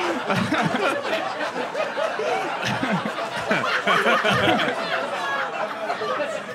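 Comedy club audience laughing at a roast joke, with many voices laughing at once; the laughter eases off slightly near the end.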